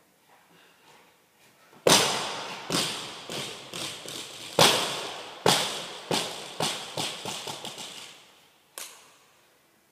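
Barbell loaded with bumper plates dropped onto rubber gym flooring: a loud bang about two seconds in and another about two and a half seconds later, each followed by a quickening run of fading bounces. A lighter knock comes near the end.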